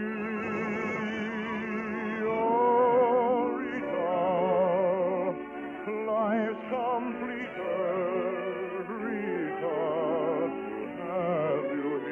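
Operatic-style singing with a wide vibrato over orchestral accompaniment, held notes changing every second or so. The recording is an old radio transcription with a dull, narrow top end.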